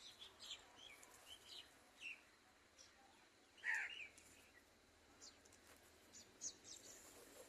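Faint bird chirps: a scatter of short, high-pitched chirps, with one louder chirp about three and a half seconds in.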